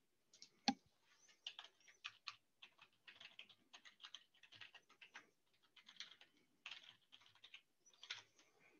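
Typing on a computer keyboard: a quick, irregular run of faint key clicks as a name and an email address are typed in.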